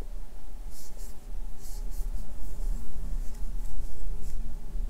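Crochet hook and yarn working half double crochet stitches: soft rubbing rustles as the yarn is wrapped and pulled through, coming in short strokes every second or so over a low rumble of handling.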